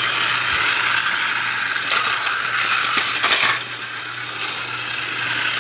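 Battery-powered light-up toy car running on flexible plastic track: its small motor whirs steadily and its wheels clatter over the track segments in a continuous ratcheting rattle. The rattle swells briefly about two seconds in and again just after three seconds.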